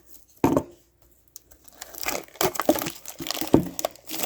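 Plastic shrink wrap on a Pokémon card tin crinkling and tearing as it is pulled off, busiest in the second half.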